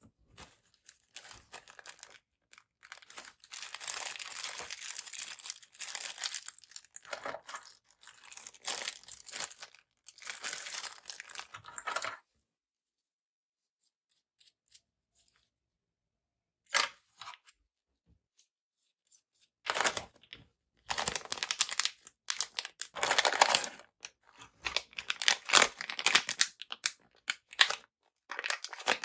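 Packaging being handled and torn open during an unboxing: bursts of crinkling and tearing of plastic and paper, with several seconds of silence midway.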